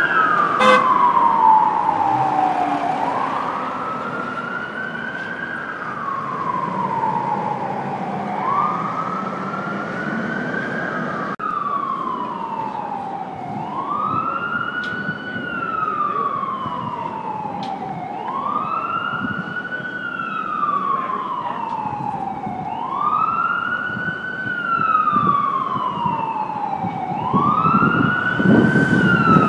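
Emergency-vehicle siren in a slow wail, sweeping up and down about every three seconds. At first it comes from an FDNY EMS truck driving away. After an abrupt break about eleven seconds in, a siren grows louder near the end over a low rumble.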